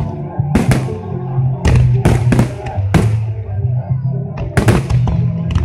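Aerial fireworks shells bursting in clusters of sharp bangs, over loud accompanying music with a deep, steady bass line.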